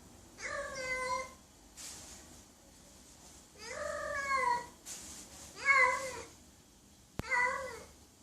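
A cat meowing four times, each meow a drawn-out call that rises and falls in pitch. A sharp click comes just before the last meow.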